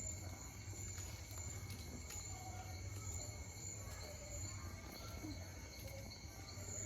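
Insects chirring faintly and steadily, a high thin trill that swells and fades every second or so, over a low outdoor hum.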